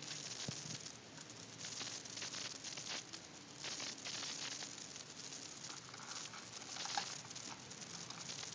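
A cat crunching dry kibble: a steady run of small, irregular crunches and crackles, with a sharper click about seven seconds in.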